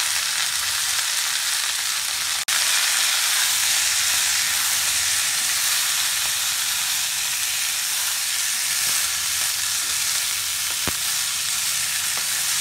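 Green peas with garlic, ginger and green chillies sizzling in hot oil in a kadhai, stirred with a wooden spatula: a loud, steady, high hiss that breaks off for an instant about two and a half seconds in.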